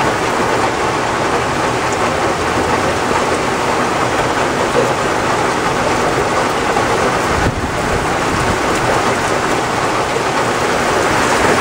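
Heavy rain pouring down in a severe thunderstorm, a loud steady hiss.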